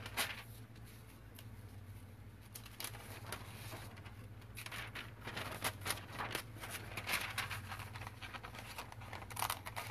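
Sheets of tracing paper and graphite paper rustling as they are handled, with scissors cutting paper in a run of short crisp snips, thickest in the middle and again near the end.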